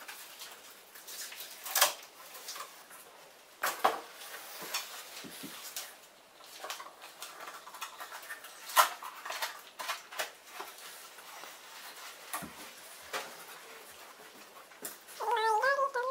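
Cardboard panels being handled and slotted together on a wooden floor: scattered taps, knocks and scrapes. A wavering, high-pitched sound starts about a second before the end.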